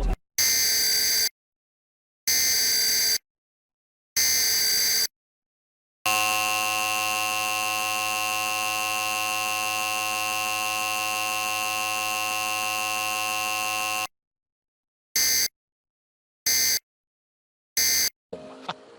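Emergency Alert System tone sequence. It opens with three SAME digital header bursts of about a second each, separated by short silences. An attention tone then holds steady for about eight seconds, and the sequence ends with three short end-of-message data bursts.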